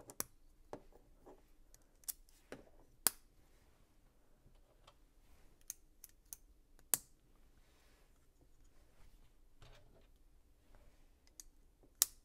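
Plastic LEGO pieces being handled and pressed together: irregular sharp clicks with soft rustles between them, a few clicks much louder than the rest.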